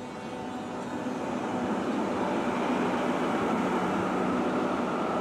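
Oslo SL79 articulated electric tram running past close by on its rails: wheel and track noise with a steady motor hum, growing louder over the first couple of seconds and then holding.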